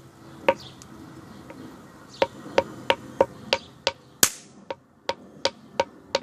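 A rock pounding repeatedly on folded toy caps on the ground: sharp knocks, about three a second from two seconds in. One strike about four seconds in gives a sharper, louder crack, a cap going off.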